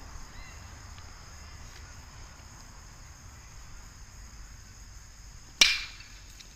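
A baseball bat squarely hitting a pitched ball: one sharp, loud crack about five and a half seconds in, with a short ringing tail. Underneath is a steady, high-pitched chorus of insects.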